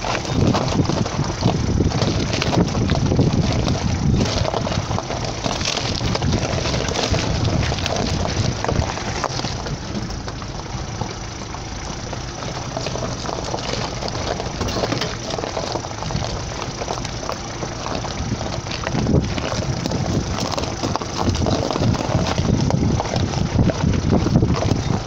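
A car driving over a loose, rocky gravel track: its engine running low beneath the crunch of tyres on stones, with many small stones clicking and rattling under the wheels.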